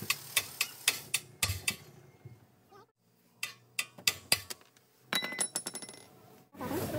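Sharp metal-on-metal hammer blows on the steering knuckle's tie rod arm, about three a second, then a second short run of blows after a pause, striking to shock the old tie rod end's tapered stud loose. Near the end comes a quick clatter of ringing metal clinks.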